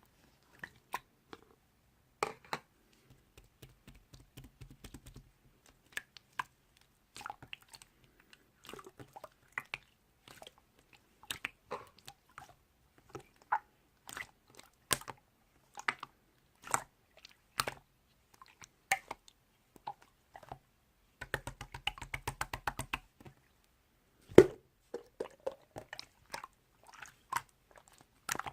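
Slime being squished and poked by hand, making irregular clicky pops and crackles, with two runs of fast crackling, one early and one a little past two thirds of the way through.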